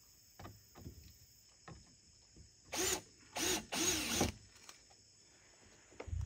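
Cordless drill driving a small screw into a wooden board: the motor whines in three short runs, the last one the longest.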